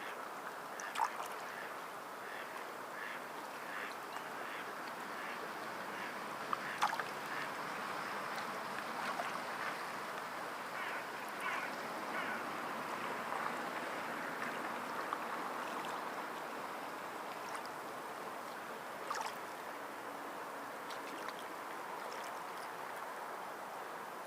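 Sea water lapping and splashing: a steady wash with many short, sharp splashes and clicks, a few louder ones standing out.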